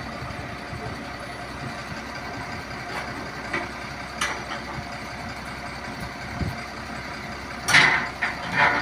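A vehicle engine idling steadily, with a few faint clicks, a low knock, and two short loud noisy bursts near the end.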